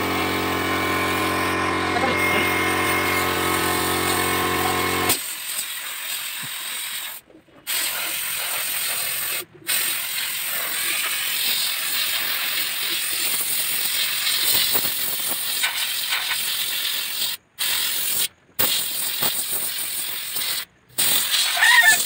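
Compressed-air spray gun hissing as it sprays wood polish, in spells broken by several brief stops. For the first five seconds a steady motor hum runs under it, then cuts off suddenly.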